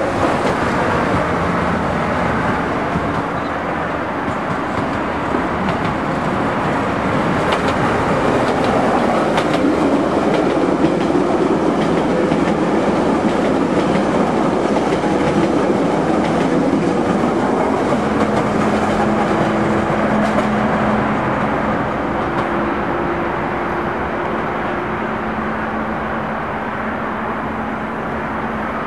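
Kyiv metro E-series trains running past on the track, a continuous noise of wheels on rails. About two-thirds of the way through, a steady low hum joins in.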